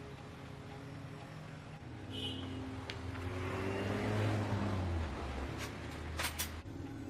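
A motor vehicle engine running, growing louder towards the middle and easing off again, with a few sharp clicks near the end.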